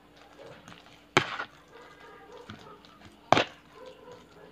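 Two sharp knocks about two seconds apart, a kitchen utensil striking hard against a cooking vessel or board as food is prepared.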